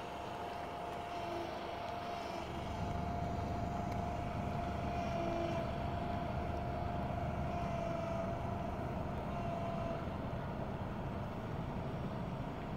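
Heavy-haul semi tractor's diesel engine running steadily with a multi-axle trailer carrying a steel bridge span, a low engine sound with a steady high whine above it.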